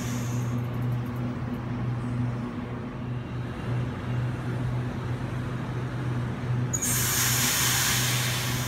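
Sydney Trains double-deck electric train beside the platform, with a steady low electric hum. About seven seconds in, a loud hiss cuts in suddenly and keeps going.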